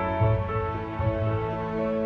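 Instrumental background music with sustained notes that change every fraction of a second.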